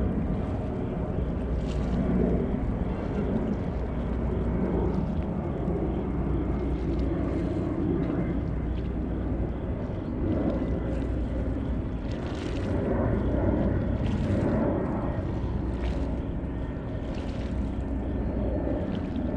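Steady low rumble of waterfront background noise, with a constant deep hum underneath and a few faint light ticks now and then.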